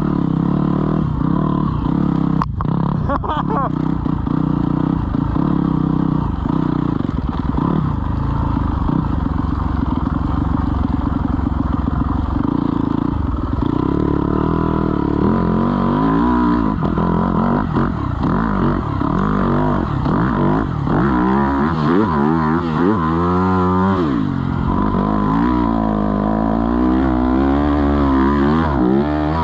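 Dirt bike engine running hard as the bike is ridden through deep snow. It is fairly steady at first, then from about halfway it revs up and down over and over.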